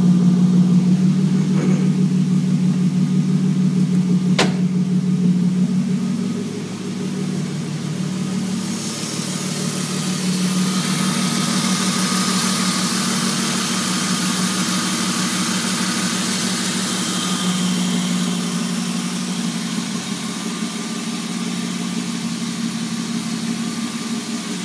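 BMW E36 M3's straight-six engine idling steadily while warming up. There is one sharp click about four seconds in, and a steady hiss joins the idle from about nine seconds in.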